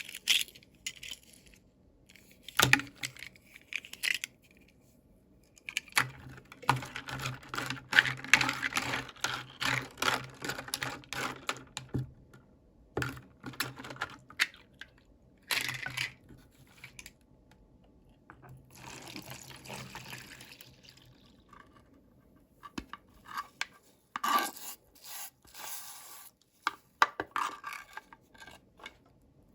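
Toy packaging being handled and opened by hand: irregular clicks, rustling and tearing of plastic and paper, in short bursts with a denser stretch of rustling about a third of the way in.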